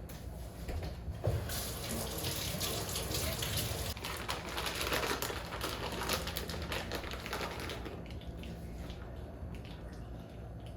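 Water running from a kitchen tap into a sink, starting about a second in and dying away after about eight seconds.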